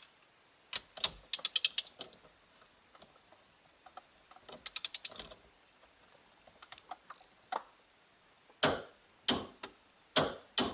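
Ratchet of a torque wrench clicking in quick runs as the steering hub nut is tightened, then three louder knocks near the end.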